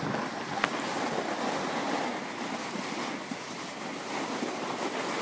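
Steady, grainy scraping of edges sliding over packed, groomed snow as the camera-holder glides down the slope, with a single sharp click about half a second in.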